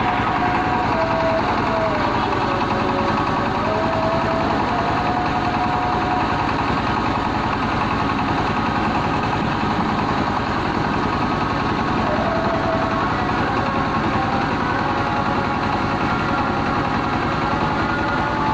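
Stationary diesel engine running steadily, driving a mobile rice huller as paddy is milled into rice, with a machine whine that sags and rises in pitch a few times.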